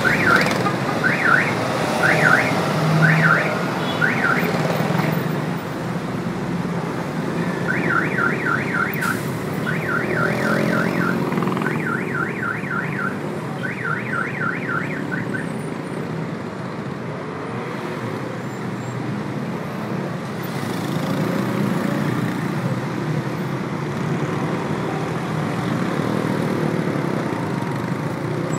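Car alarm sounding over steady city traffic. It gives five slow rising-and-falling whoops, then after a short gap four runs of rapid chirps, stopping about halfway through. The rumble of passing cars and engines continues underneath throughout.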